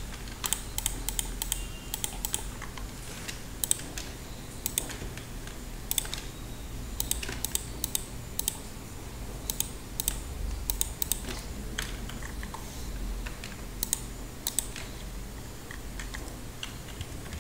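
Computer keyboard keys and mouse buttons clicking irregularly, a few at a time with short gaps, over a low steady hum.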